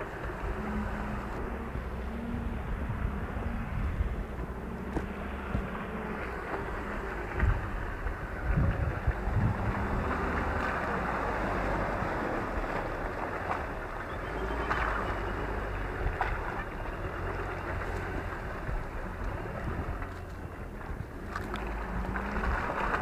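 A 2017 Ford Ranger Wildtrak 4WD's engine running steadily at low speed as the truck crawls through muddy, water-filled ruts, with a few louder thumps about eight seconds in.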